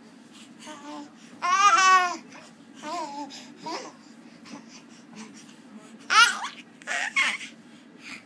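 Baby babbling in a string of short, high-pitched vocal sounds. The longest and loudest, with a wavering pitch, comes about a second and a half in, and another loud, sharp one about six seconds in.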